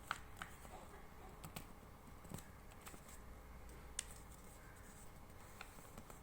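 Faint, scattered crinkles and taps of an A4 paper sheet being folded and creased by hand, one flap forward and one back.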